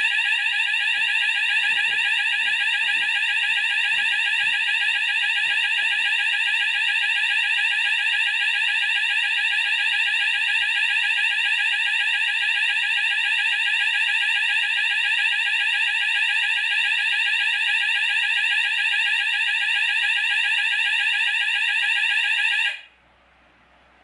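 A Hochiki ESP addressable fire alarm system's sounder goes off with a loud, continuous electronic alarm tone when a smoke detector is put into alarm on test. The tone cuts off suddenly near the end.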